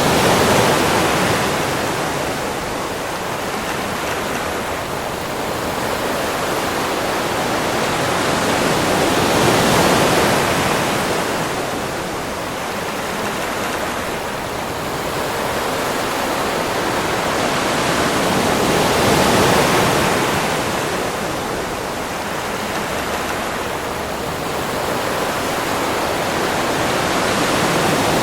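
Ocean surf washing onto a beach: a continuous rush of water that swells and falls back, with a wave surging in roughly every ten seconds.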